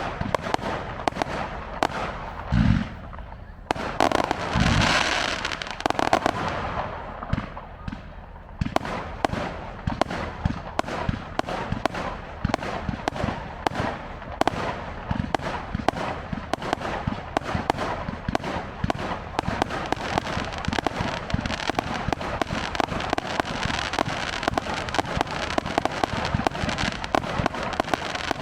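Fireworks display: two heavy booms about three and five seconds in, then dense, rapid crackling and popping that runs on without a break.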